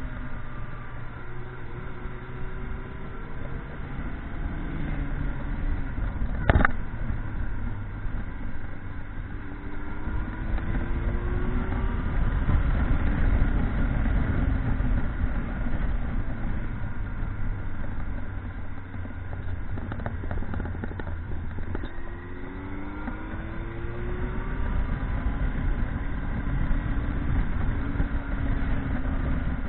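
Motorcycle engine running on the move under a low rumble of wind and road noise, its pitch climbing and falling several times as it accelerates and changes gear. One sharp click about six and a half seconds in.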